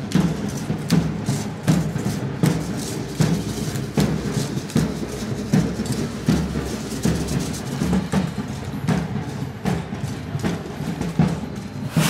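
Live music carried by drums, with a steady beat of low drum strokes and lighter percussion strikes between them. A sharp loud crack comes near the end.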